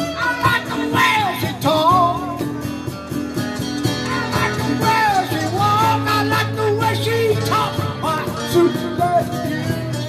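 Live band playing rock and roll on acoustic and hollow-body electric guitars, with a man singing.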